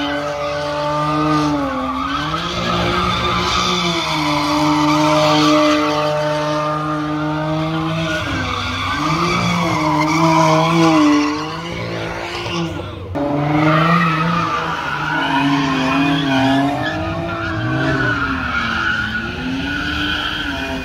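A car doing donuts, its engine held high in the revs and rising and falling as the throttle is worked, with the tyres squealing continuously against the pavement. About two thirds of the way through, the revs drop briefly, then climb sharply again.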